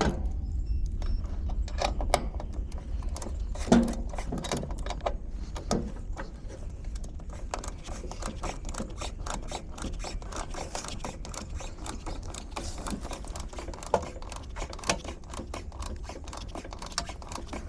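Work noise: a fast run of small mechanical clicks, with a few louder knocks in the first six seconds, over a steady low hum.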